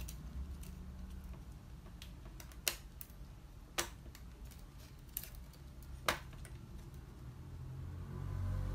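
Sharp plastic clicks from a laser printer fuser assembly as its wires and clips are worked loose by hand, four clicks spread over several seconds. A low hum runs underneath, and a low rumble rises near the end.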